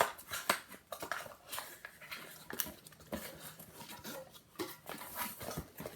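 Handling and opening the packaging of a HomePod mini box: a series of irregular small clicks, scrapes and rustles of cardboard and plastic.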